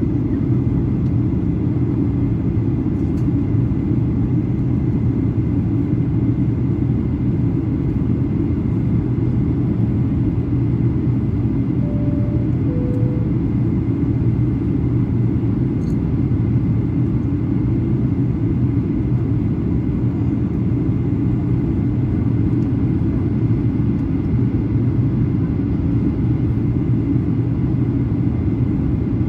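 Steady low rumble inside the cabin of a Boeing 737-800 in flight, from its engines and the airflow. About twelve seconds in, a two-tone cabin chime sounds once, high then low.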